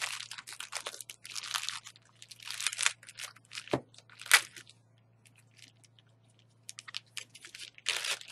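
Clear plastic bag crinkling and rustling in irregular bursts as it is handled and opened. A single sharp knock a little before halfway, then about two seconds of quiet before the crinkling starts again.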